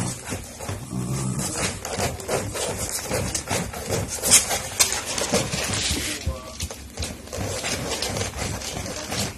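Jack Russell terriers growling in a tug-of-war over a rope toy.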